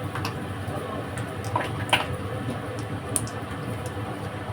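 Food frying in hot oil in a pan: a steady sizzle with a few sharp crackles and clicks.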